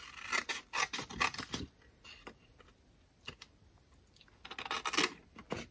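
Small spring-loaded paper snips cutting labels out of a paper sheet: a run of quick sharp snips with paper handling, a quiet stretch, then another run of snips near the end.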